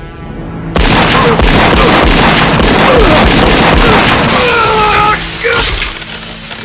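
Film sound effects: a sudden, very loud sustained volley of pistol gunfire starts about a second in and runs for about five seconds. Near its end a yell rises and falls as a man falls from a building.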